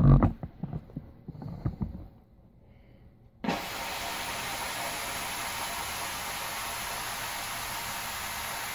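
A few low handling knocks, then about three and a half seconds in a steady hiss starts suddenly: the McCulloch MC1375 steam cleaner blowing steam out through its mop head attachment.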